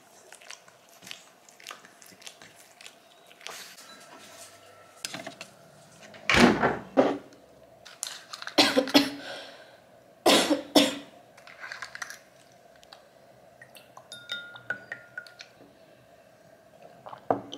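Close handling sounds at a table while lemon water is made: a run of small clicks and taps, with three louder clusters of knocks and rustles about six, nine and ten seconds in, over a faint steady hum.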